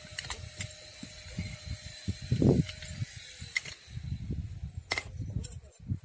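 Metal clicks and handling noise as a new metal cutting disc is fitted onto an angle grinder's spindle, with a few sharp clinks and one louder dull thump about two and a half seconds in. The grinder is not running.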